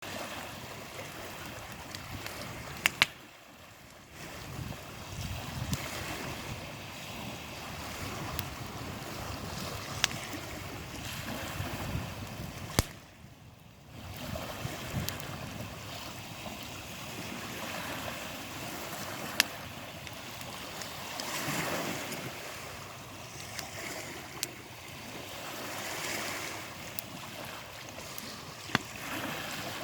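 Campfire crackling, with about half a dozen sharp pops from the burning wood over a steady rushing wash of wind and surf.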